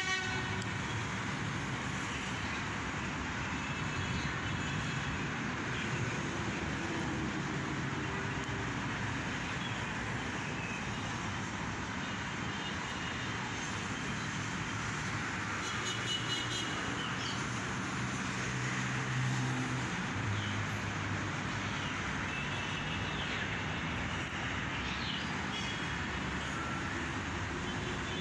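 Steady street traffic noise: a continuous hum of passing vehicles.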